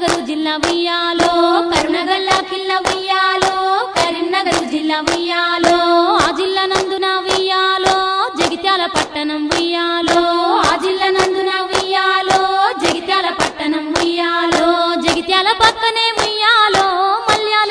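Women's voices singing a Telugu Bathukamma folk song, with steady, rhythmic hand claps keeping time.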